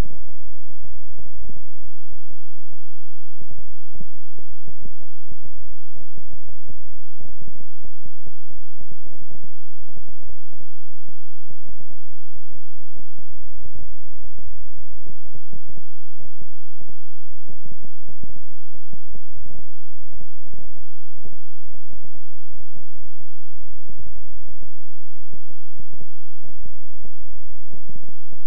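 Synthesized low tone of a healing-frequency track: a deep, steady hum that throbs in quick, uneven pulses.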